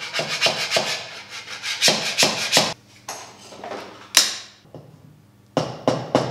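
Scraping and prying a freshly printed calibration cube off an Anycubic Kossel delta 3D printer's print bed: a quick run of rough scraping strokes for the first three seconds, one hard stroke about four seconds in, then a few more near the end. The print is stuck fast because its first layer was printed too close to the bed.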